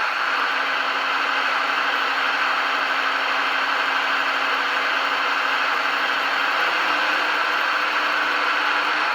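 Diesel engine sound from a DCC sound decoder, played through the small speaker of a Brawa ÖBB 2048 model locomotive: a steady, hissy engine drone whose note steps up slightly about seven seconds in.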